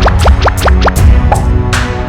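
Electronic background music with a heavy beat and a run of quick rising, scratch-like sweeps through the first second.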